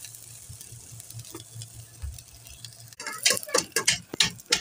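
Sliced onions and green chillies sizzling faintly in a little oil in a non-stick pot while being lightly sautéed. About three seconds in, a spoon starts scraping and knocking against the pot in a quick run of sharp strokes as they are stirred.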